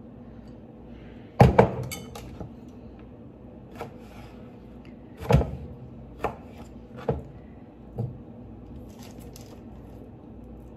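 Knife cutting strawberries into small pieces on a cutting board: about seven irregular knocks, the loudest about one and a half seconds in and again halfway through.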